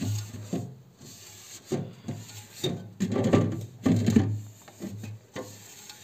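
A damp cloth rubbing back and forth over a fridge's ribbed plastic shelf, in a series of uneven wiping strokes with the loudest in the middle.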